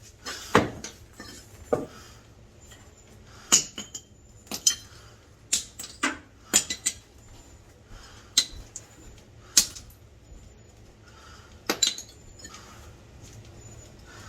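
Irregular sharp metallic clanks and knocks, about a dozen in all, some with a short ring: heavy cast-iron furnace parts being struck or knocked together.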